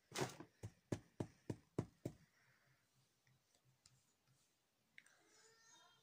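A makeup palette being handled: a quick run of about seven sharp clicks and taps over the first two seconds, then near quiet.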